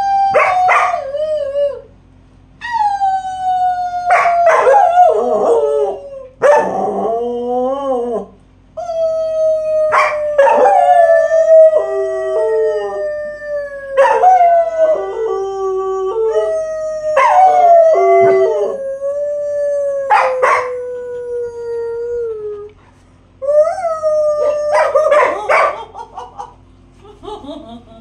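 A woman and a black German Shepherd howling together: a run of long howls, each sliding slowly down in pitch, with short breaks between them and two voices overlapping at times.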